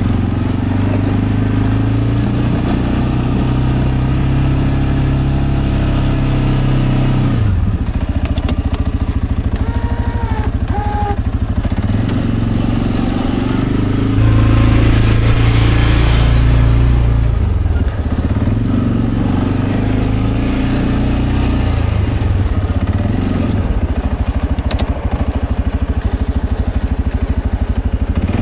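CFMOTO CForce 520L ATV's single-cylinder engine running under way, dropping to a pulsing idle and picking up again several times. It is loudest for a few seconds about halfway through.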